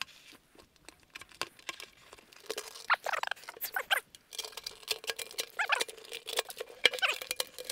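Dust cap being cut and pulled off the cone of a blown 12-inch car-audio subwoofer: a run of scratching, crinkling clicks and short squeaks as the cap tears free.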